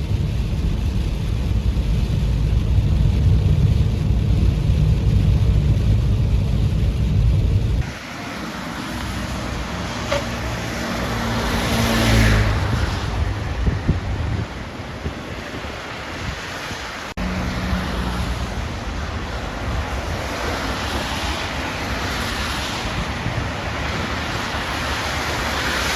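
Road traffic in the rain: cars passing with tyres hissing on wet asphalt, the hiss swelling and fading as they go by. A heavy low rumble fills the first eight seconds, then stops abruptly, and the sound changes again with another abrupt cut a little past halfway.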